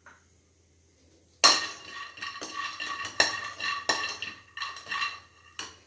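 A spoon stirring raw peanuts around a dry aluminium kadhai: a series of scraping, clinking strokes with the pan ringing, starting about a second and a half in, the first stroke the loudest.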